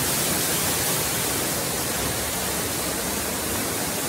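Waterfall pouring into a rock pool: a steady rushing of falling water.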